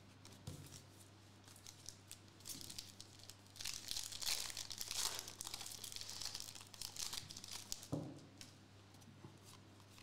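A foil wrapper of a Donruss Elite trading card pack being torn and peeled open by hand, crinkling for several seconds in the middle, loudest about halfway through.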